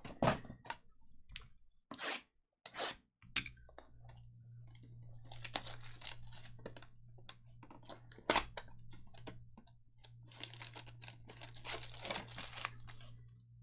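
Trading card pack wrappers being torn open and crinkled in a series of sharp rips and crackles, over a steady low hum that starts about three and a half seconds in.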